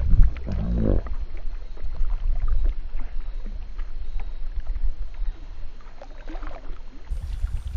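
Low, uneven rumble of wind and water noise on a kayak-mounted action camera's microphone as the kayak sits on the river.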